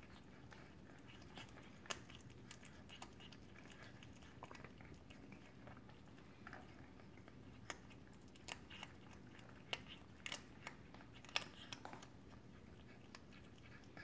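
Cat chewing and crunching on a small bird: faint, irregular crunches and clicks, the sharpest coming in the second half.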